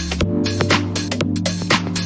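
Background electronic music with a steady beat, sustained bass and chords, and a change of chord about a quarter-second in.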